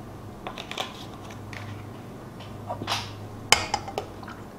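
Kitchen handling sounds: a few light clicks and knocks as a cream carton and a glass measuring cup are handled and set on a stone counter, the sharpest knock about three and a half seconds in. Heavy cream is then poured from the measuring cup into a stainless steel bowl, over a faint steady hum.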